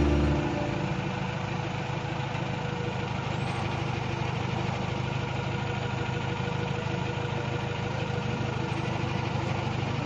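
Heavy machine's engine running steadily.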